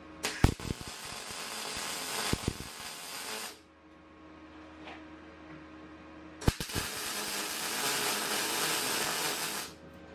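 MIG welder (Mastroweld MIG-250MI) laying two short welds on square steel tubing. Each weld starts with sharp pops as the arc strikes, then a steady crackling hiss that runs for about three seconds and cuts off.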